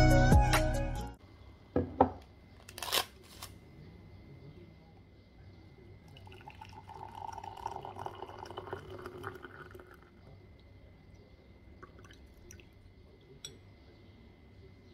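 Background music that stops about a second in, then a few sharp knocks, then water poured from a kettle into a ceramic mug for about four seconds, followed by a few faint clicks.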